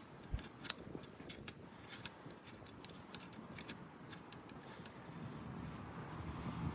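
Light, scattered clicks and ticks of small metal parts being handled as a screw is run in by hand on a motorcycle's shift lever mount.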